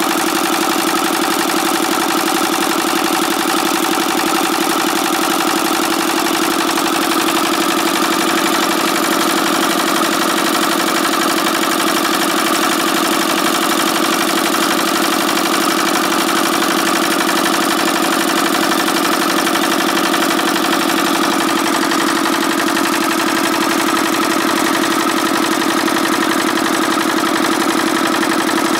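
Single-cylinder water-cooled horizontal diesel engine of a walking tractor, running steadily at a constant speed.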